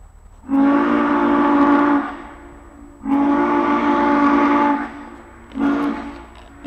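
Norfolk & Western 611 steam locomotive whistle sounding several notes at once: two long blasts, then a short one about five and a half seconds in. This is the opening of the long-long-short-long grade-crossing signal.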